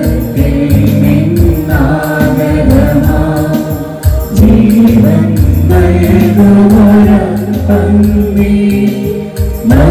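Church hymn sung with musical accompaniment, in long held notes over a steady low line.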